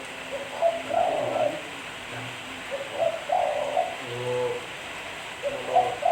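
Spotted dove (tekukur) cooing, its phrase repeated three times about two and a half seconds apart.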